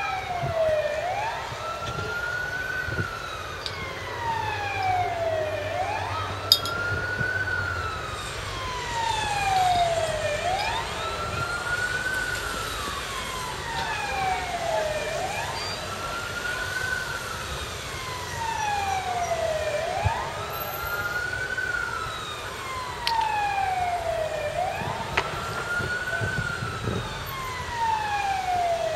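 Fire engine siren wailing in slow, steady cycles. Each cycle is a quick rise in pitch, a short hold and a long fall, repeating about every four and a half seconds. A low engine rumble runs underneath.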